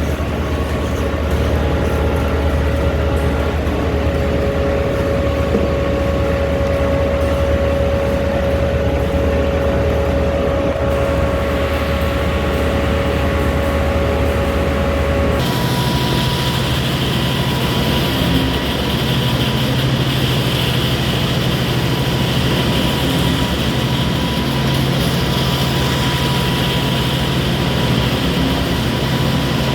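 Construction machinery engines running steadily. About halfway through, the sound switches abruptly to a different steady engine note with more hiss.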